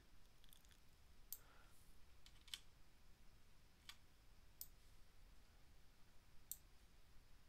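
Near silence with a handful of faint, scattered computer mouse clicks.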